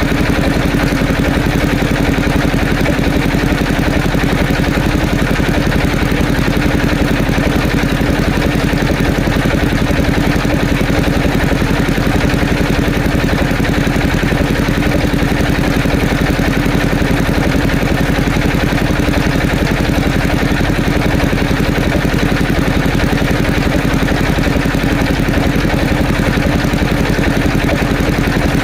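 Engine of a wood-sawing machine running steadily at an even speed, with no change in pitch or level.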